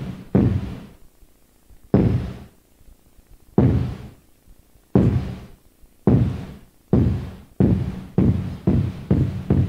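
Large mosque drum (bedug) beaten with single heavy strikes, each booming and ringing out, at first spaced well apart and then coming faster and closer together toward the end. This is the drumming that announces the time of prayer before the call to prayer.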